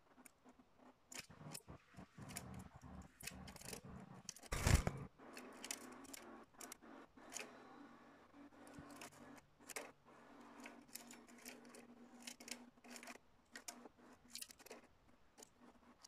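Canaries moving about a wire cage and picking at seed: scattered small sharp clicks and light rustles, with one louder rustling burst about four and a half seconds in.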